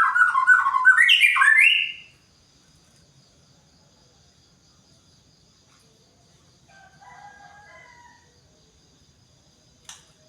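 White-rumped shama singing: a loud phrase of clear whistled notes stepping up and down in the first two seconds, then a softer short phrase about seven seconds in. A single click comes near the end.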